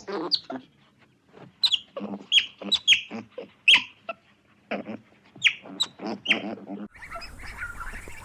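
Animal calls: a quick series of short, high calls that fall in pitch, with gaps between them. Near the end they give way to a denser, steadier chorus of chirping.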